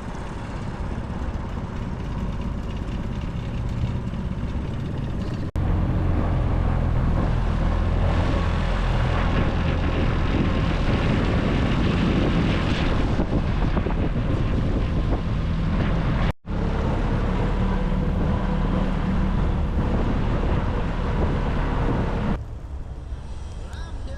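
Boat's outboard motor running steadily under way on the river. It jumps louder about five seconds in, cuts out for an instant midway, and drops in level near the end.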